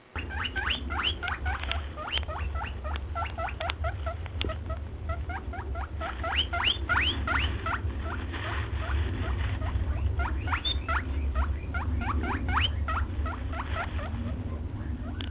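Small birds chirping busily: many quick, high, upward-sweeping squeaky calls, several a second, over a steady low rumble.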